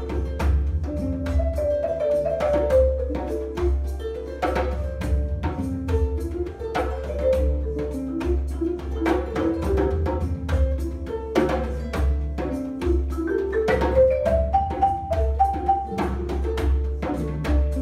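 Marimba played with mallets in quick stepping melodic patterns over djembe hand drumming, with a rising run of marimba notes about fourteen seconds in.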